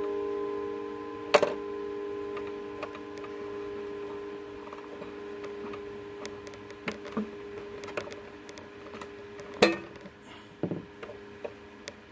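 Chime rods of a Sessions chiming clock ringing on and slowly dying away after being struck. A sharp click comes about a second and a half in and another near the end, with a few fainter ticks from the mechanism in between.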